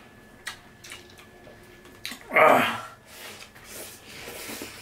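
Sounds of hand-eating: a few small mouth and food clicks, then a sudden loud burst of breath from one of the eaters a little after two seconds, followed by softer breathy sounds.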